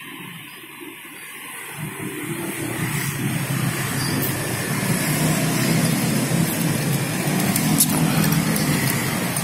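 Motor vehicle engine on the road, growing louder from about two seconds in as it approaches and staying loud.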